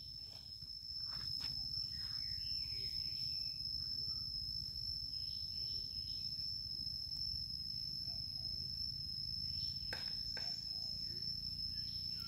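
A steady, high-pitched insect drone over a low background rumble, with a few faint clicks, two of them about ten seconds in.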